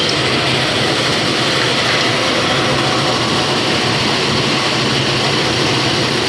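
Welding electrode production machinery running with a loud, steady noise and a low hum.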